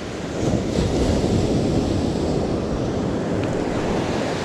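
Ocean surf breaking and washing up the beach, with wind buffeting the microphone; the rush swells a little under half a second in and then holds steady.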